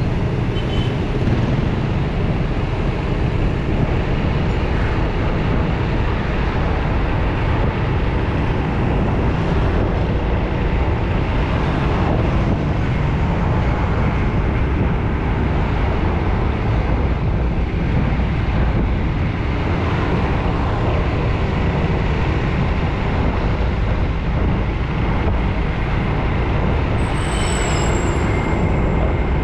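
Steady road-traffic noise: engines and tyres of vehicles passing close by on a busy road. A brief high-pitched squeal comes near the end.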